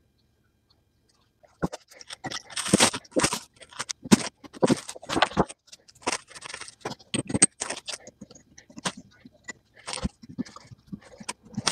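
Irregular scraping and clicking as a lathe quick-change tool holder is handled on a workbench and brushed off with a paintbrush, with small metal clicks and knocks. It starts about a second and a half in.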